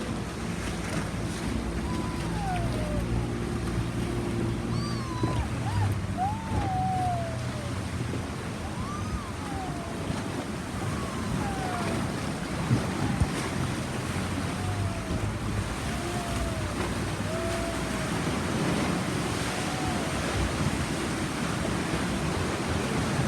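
Waves and wind on open water, with a boat engine running low that fades out after the first several seconds. Over this, birds give short gliding calls again and again.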